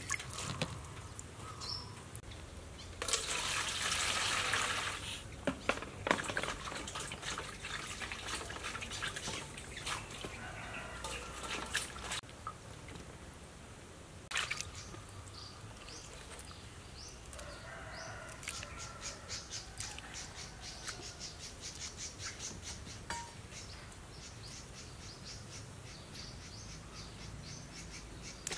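Kitchen prep sounds: water splashing and dripping as cauliflower florets are rinsed and handled in a plastic basket, with a louder splash a few seconds in. Later comes a run of quick, light clicks and taps, with birds chirping in the background.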